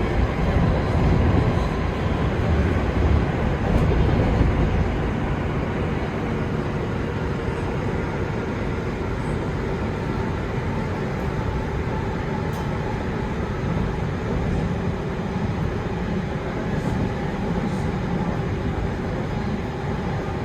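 London Underground Northern line train (1995 stock) running between stations: a steady rumble of wheels on rails and running noise, a little louder in the first few seconds.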